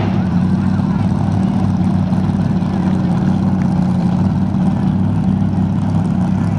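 Jet sprint boat engine running in a loud, steady drone that holds one pitch throughout.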